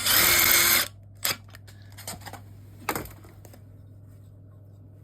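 Impact driver running in one short burst of just under a second, winding a long M8 screw into the tapped oil galley core plug of an engine block. A few light knocks follow.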